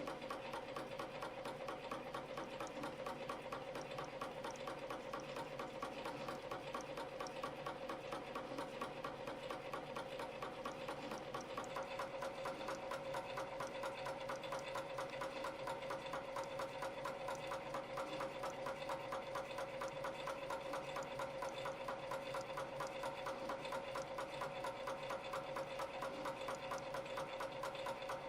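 CNC spring coiling machine running in production, forming tiny springs from 0.2 mm wire at about 300 a minute. It makes a fast, even mechanical clatter over a steady hum.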